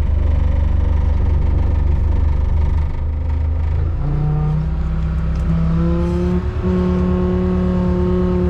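Tractor engine running, heard from inside the cab. About three to four seconds in it speeds up and then holds steady at the higher speed.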